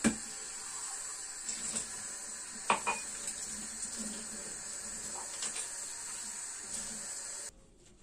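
Kitchen tap running into a stainless steel sink while drinking glasses are rinsed under it, with a few glass knocks and clinks, the sharpest right at the start and near three seconds in. The water shuts off about half a second before the end.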